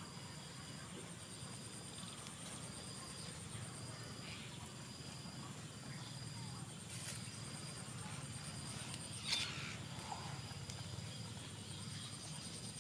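Outdoor insect chorus: a steady high drone with a short high chirp repeating a little more than once a second. A brief sharp click about nine seconds in is the loudest sound.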